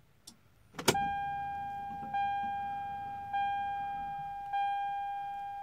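A click as the ignition key is turned on, then the 1997 Toyota Supra's dash warning chime (the seatbelt reminder, its warning light lit) dinging four times, about one ding every 1.2 seconds, each a steady tone that fades slowly.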